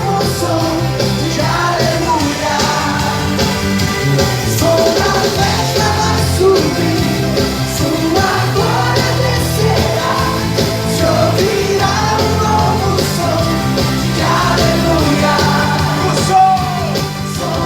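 Loud music with singing and a steady bass line.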